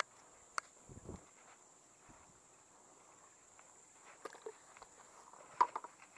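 Scattered rustles, taps and clicks of a cast net and small fish being handled on grass, with footsteps through the vegetation; a sharp click about five and a half seconds in is the loudest.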